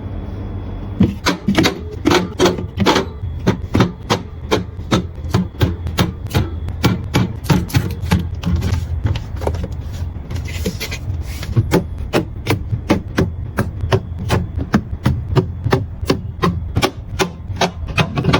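Rapid series of sharp knocks and taps, several a second, over a low steady hum, with a short rustle about halfway through.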